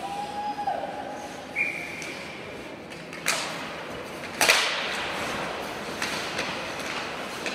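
Ice hockey play in an arena: two sharp cracks of stick and puck, about three and four and a half seconds in, the second the loudest, over the steady hum of the rink. A short high tone sounds about a second and a half in.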